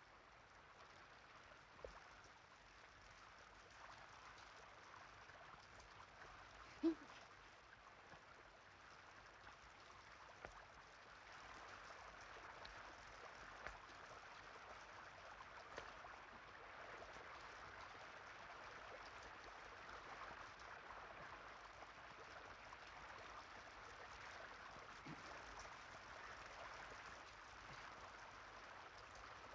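Faint, steady hiss of water, growing a little louder after about ten seconds, with one short low thud about seven seconds in.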